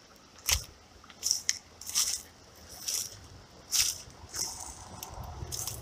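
Footsteps crunching through dry fallen leaves at a walking pace, about one step a second.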